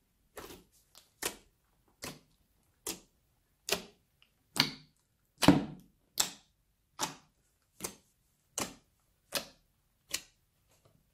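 Hand pressing rhythmically into a large mass of mixed old slime, about once every 0.8 seconds, each press giving a short sharp pop as air trapped in the slime escapes. There are about a dozen presses, the loudest near the middle.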